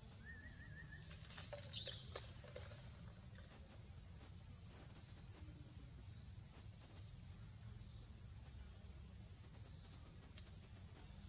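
Quiet outdoor ambience: a steady high-pitched drone typical of an insect chorus, over a low rumble. A brief rustling crackle comes about two seconds in, just after a short faint whistle-like note.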